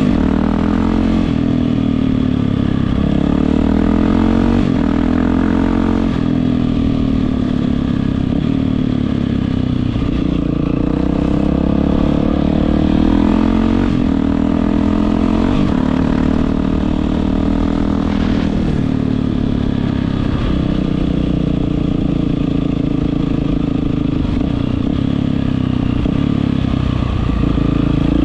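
Yamaha WR450F single-cylinder four-stroke motorcycle engine running through an Akrapovič exhaust, its pitch rising and falling repeatedly with the throttle.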